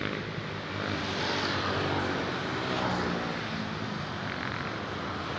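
Road traffic: motor vehicle engines running past, a steady drone with road noise.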